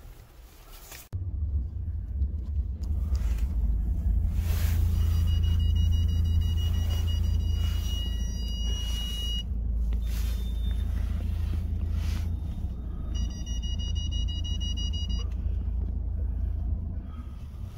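Low, steady rumble of a Mercedes-Benz car driving, heard inside its cabin, coming in suddenly about a second in. A high electronic beeping tone sounds twice over it, for a few seconds each time.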